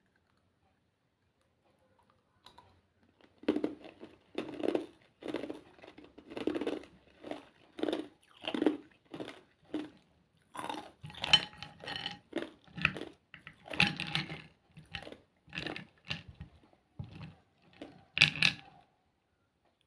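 A person chewing ice close to the microphone: a run of sharp crunches, roughly three every two seconds, starting about three and a half seconds in.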